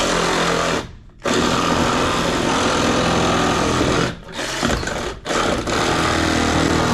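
Power tool cutting into cast iron soil pipe, running loud and steady with short stops about a second in, around four seconds in and just after five seconds.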